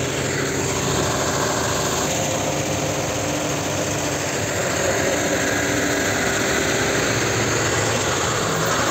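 Truck engine running steadily, a DeSoto crane truck driving its hydraulic crane with a truck cab hanging from the boom.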